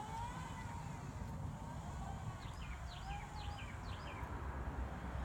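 A songbird calls a quick series of four chirps, each sliding down in pitch, starting about two seconds in, over a low steady outdoor rumble.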